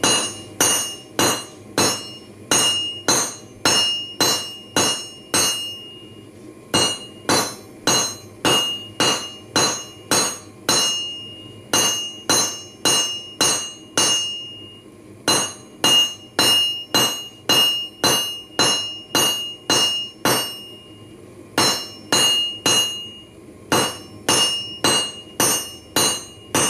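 Hand hammer striking a red-hot stainless steel bike kickstand on a railroad-rail anvil to draw it out: sharp metallic blows about two to three a second, in runs broken by brief pauses, each leaving a high ring from the rail.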